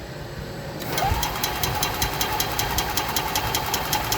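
Kawasaki 400 engine of an EZ-GO Express L4 EFI golf cart being cranked by the starter without firing: a whine that rises and holds steady, with rapid even ticking, starting about a second in. It turns over but does not start.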